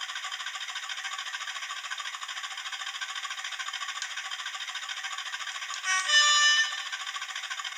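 Hornby TTS sound decoder in a Class 20 model locomotive playing the diesel engine at idle: a steady, pulsing beat, thin and without bass, as from a small onboard speaker. About six seconds in, a short horn blast sounds over it.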